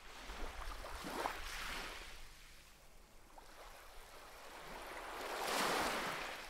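Cartoon sea-water sound effect: water washing and lapping in two swells, the second and louder one near the end.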